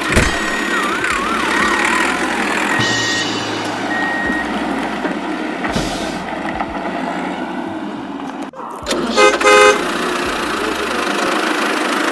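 Steady vehicle engine noise with a series of short high beeps in the first few seconds, then two loud horn toots about nine seconds in.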